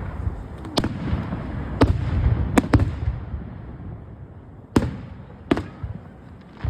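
Aerial fireworks bursting: about six sharp bangs over a dense crackle and low rumble. The crackle dies away midway, and two more separate bangs come near the end.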